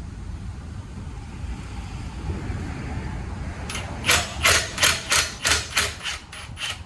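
A quick run of about ten sharp knocks, roughly three a second, starting about four seconds in over a low steady rumble: tool blows during work on the front suspension.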